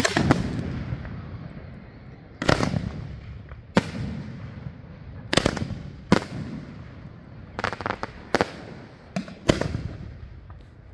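Aerial fireworks shells launching and bursting: a series of about ten sharp bangs at uneven intervals, some in quick pairs, each trailing off in a rumbling echo.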